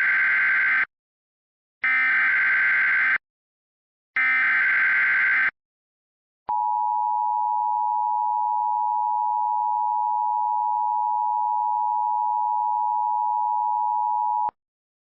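Emergency Alert System tones: three harsh, buzzy SAME header data bursts, each about a second and a half long with short gaps between them. They are followed by about eight seconds of the steady two-tone EAS attention signal, which cuts off sharply.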